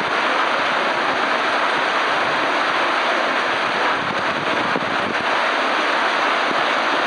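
Heavy monsoon rain pouring down in a loud, steady rush.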